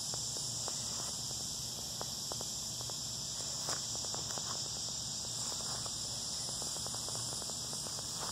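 Steady high-pitched insect chorus, with light, irregular crunching footsteps on dry pine straw and leaves.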